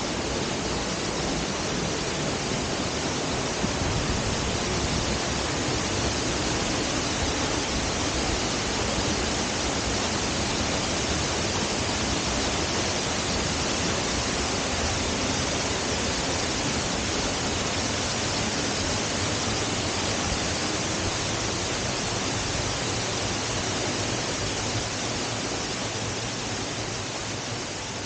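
Steady rush of water falling over a small waterfall on a burn, an even noise with no break, fading a little near the end.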